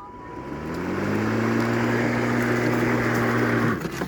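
Gas backpack leaf blower throttled up: its engine note rises over about a second, runs steady at high speed with a strong rush of air, then cuts off suddenly near the end.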